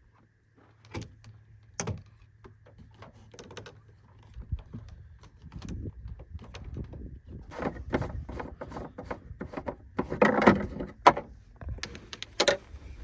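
Irregular knocks, clicks and rattles of gear being handled, with a louder cluster of clattering about ten seconds in and a sharp knock near the end.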